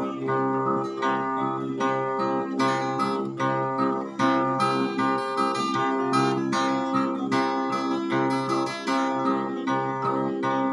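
Plucked string instrument music: a run of quickly repeated plucked notes over steadily ringing low notes, with no singing.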